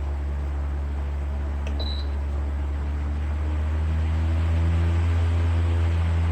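PELONIS 16-inch pedestal fan running with a steady low hum and airflow rumble. Its control buzzer gives one short high beep about two seconds in, the sound it makes when the mode or setting is changed. The fan gets louder from about four seconds in.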